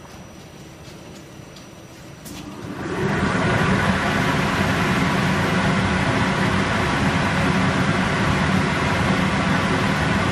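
Giardina UV tunnel machinery starting up in automatic cycle: a click about two seconds in, then the running noise rises over about a second to a steady loud noise with a low hum.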